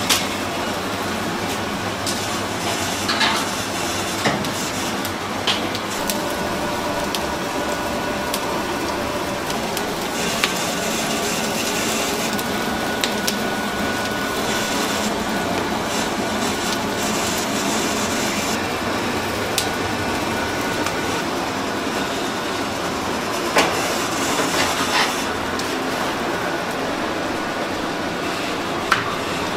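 Steady noisy rumble at a wood-fired rotisserie chicken grill, with scattered clicks and metal clanks from the spits, a cluster of them late on and another just before the end.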